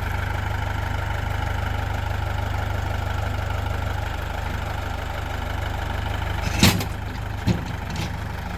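Tractor engine idling steadily, with a sharp clank about two-thirds of the way through and a lighter knock just after, as the front-loader attachment is worked into place.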